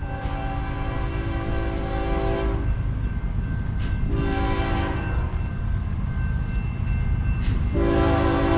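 Locomotive air horn sounding a chord in three blasts: a long one, a short one, then another long one starting near the end, over the low rumble of a train running by.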